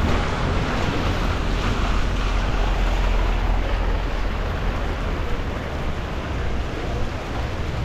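Steady rushing noise of rain, with a low wind rumble on the microphone.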